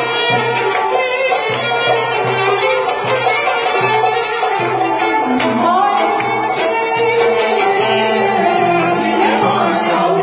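A woman singing into a microphone over an amplified band backing, with a steady bass beat about twice a second.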